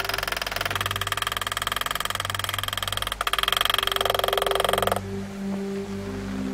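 An engraving tool working steel plate, making a rapid, even pulsing that stops abruptly about five seconds in.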